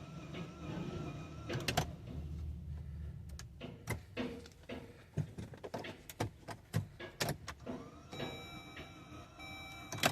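Inside a 2011 Jeep Grand Cherokee Hemi that won't start: a warbling electronic warning tone, then a run of irregular clicks for about four seconds, with the tone coming back near the end.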